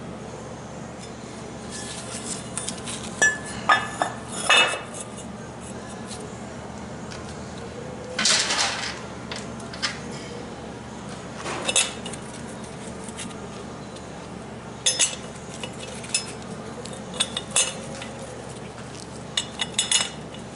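Metal hand tools and transmission parts clinking and clanking against each other in scattered clusters every few seconds, over a faint steady hum.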